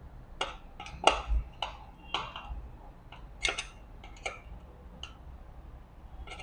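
Irregular sharp metallic clicks and taps, about a dozen, as a screwdriver works the drain screw in an industrial sewing machine's metal oil pan.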